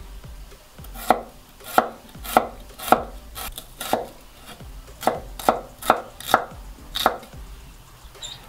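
Onion being sliced into thin half-rings with a large cleaver-style kitchen knife on a wooden cutting board: about a dozen crisp knife strokes hitting the board, roughly two a second, with a short pause midway.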